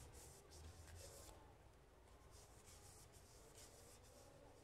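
Faint, scratchy scrubbing of a small solvent-wetted cleaning brush pushed in and out of the chambers of a Rossi .38 revolver's cylinder. It comes as a few short strokes, roughly one a second.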